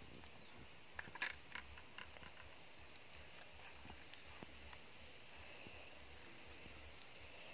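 A few light clicks and knocks of a plastic bowl scooping cooked matoke out of a metal cooking pot, loudest about a second in, over a faint, steady high chirring in the background.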